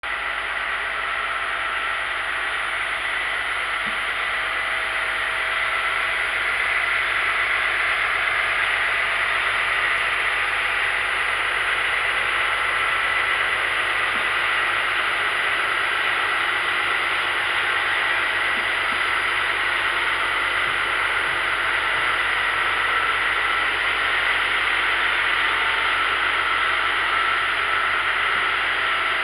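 Amtrak rail-mounted mowing machine running on the track, a steady hissing machine noise with a faint high whine that gets a little louder after about six seconds.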